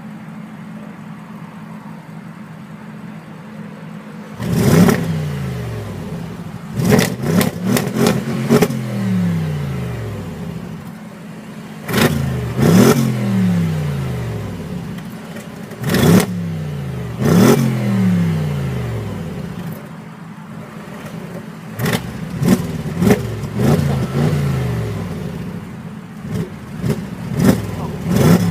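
Audi RS6 engine through its standard exhaust, idling steadily, then revved hard in a series of short blips from about four seconds in. Each blip jumps up sharply and falls back to idle, some coming two or three in quick succession.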